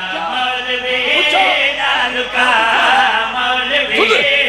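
Men's voices chanting a devotional qasida refrain together, with long held, wavering sung notes.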